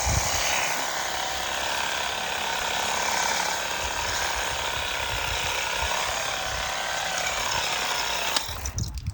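Ronix 8930 20V cordless pressure washer running, its pump and water jet making a steady hiss that cuts off suddenly near the end.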